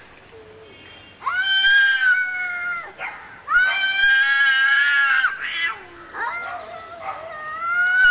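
Domestic cat yowling angrily. Two long, drawn-out yowls come about a second in and again near the middle, followed by shorter, lower calls that rise again near the end.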